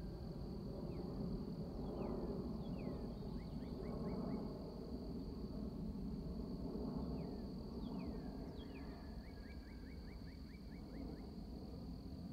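Distant rumble of a Boeing 747-400's four turbofan engines passing overhead. A songbird sings twice over it, each time a few downward-sliding notes followed by a quick even trill, and an insect buzz runs steadily high above.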